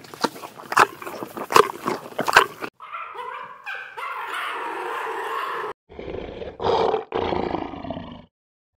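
Animal calls from several different clips in sequence: a run of sharp repeated calls at first, then a steadier noisy stretch, then more calls. The sound changes abruptly between them.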